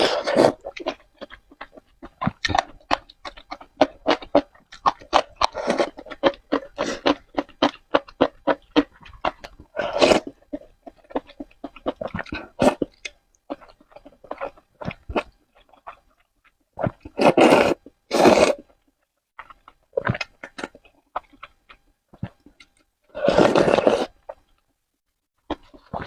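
Close-miked eating of spicy noodles: wet chewing and mouth smacks in quick irregular clicks, broken by a few louder, longer slurps, two of them close together past the middle and one near the end.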